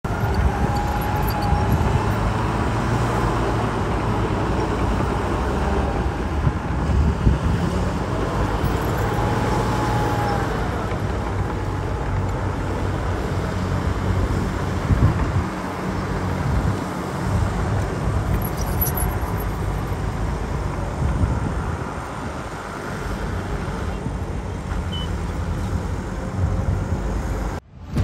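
Heavy earthmoving machinery working: diesel engines running with a steady low rumble, with a couple of brief rising-and-falling whines. The sound cuts off suddenly near the end.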